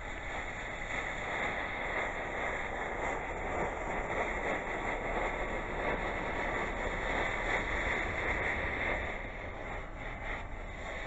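A lit fuse burning with a steady hiss that swells over the first couple of seconds.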